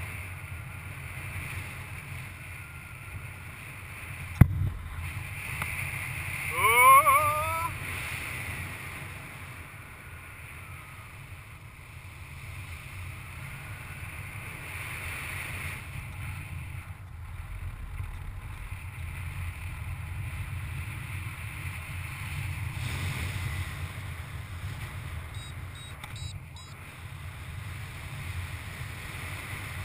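Steady rush of airflow over the camera microphone in paraglider flight, a low rumbling buffet that swells and eases. A sharp click about four seconds in, and a short rising-pitched tone a few seconds later, the loudest moment.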